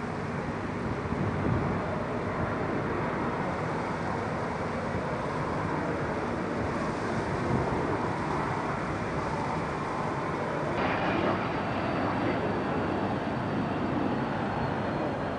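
Jet engine noise on an airport ramp: a steady rush, joined about eleven seconds in by a high turbine whine that slowly falls in pitch as a three-engined business jet taxis past.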